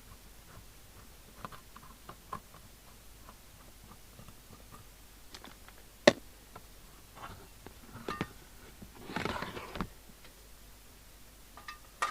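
Handling noises on a workbench: scattered light clicks and taps, one sharp click about six seconds in, a short clatter, then a second or so of scraping or rustling.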